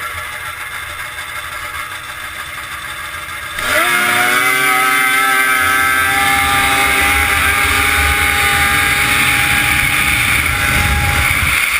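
Arctic Cat 1000 snowmobile engine running steadily at low revs. About three and a half seconds in, it is opened to full throttle: it gets suddenly much louder, its pitch climbs quickly, then holds high and steady as the sled accelerates flat out.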